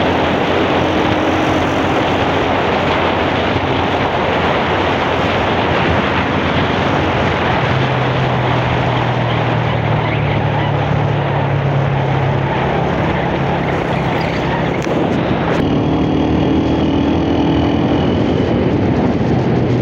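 Steady rush of wind on the microphone and road noise from a moving vehicle, with a low engine hum that rises and falls a little in the middle.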